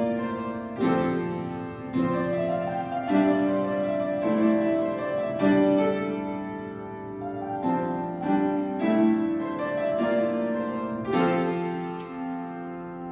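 Background piano music: a slow melody of struck chords and notes that ring and fade between strikes.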